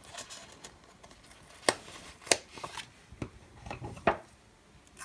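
Light clicks and paper rustles as a planner page is handled and a sticker pressed on, with two sharper clicks a little before halfway.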